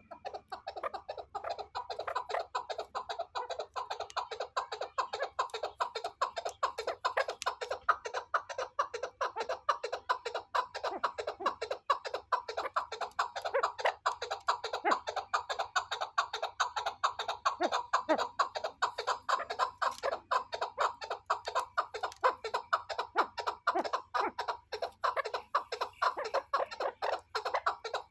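Chukar partridge calling: a rapid, unbroken run of short clucking notes, several a second.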